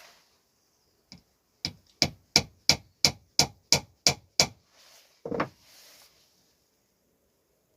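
Hammer blows on wood while building a bird feeder: about nine sharp, even strikes at roughly three a second, followed by a single duller noise.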